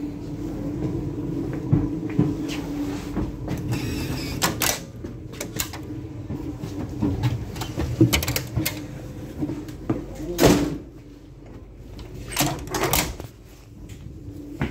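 Irregular knocks, clicks and clunks inside a train carriage as a handheld phone camera is moved about and bumped, the two loudest about eight and ten and a half seconds in. A low steady hum fades out over the first few seconds.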